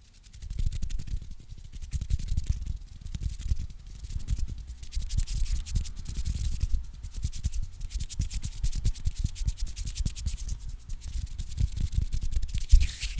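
Close-miked scissors being handled and rubbed against the microphone, giving a dense run of small rapid clicks over a low rumble of handling noise.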